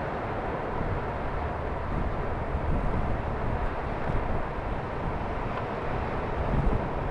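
A steady low rumbling noise, with no distinct events in it.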